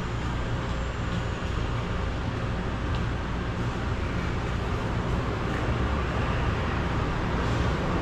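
Car engine running steadily with a low rumble, under a broad steady noise.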